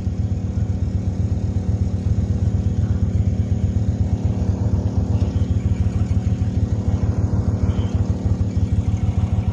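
Small engine running steadily at one speed, its firing heard as a fast, even low pulse.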